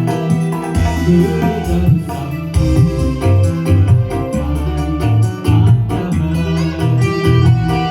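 Music led by an electronic keyboard playing an organ-like sound over a steady, repeating bass line.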